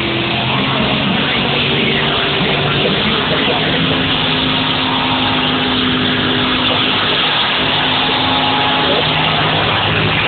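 Car engine held at steady high revs while its rear tyres spin and smoke in a burnout. Engine and tyre noise make a loud, unbroken din.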